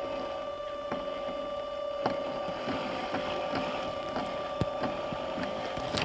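Blazer K5 scale RC crawler's electric motor and drivetrain whining steadily under load as it climbs a steep stump, with a few sharp clicks and knocks from the tyres and chassis on bark and twigs.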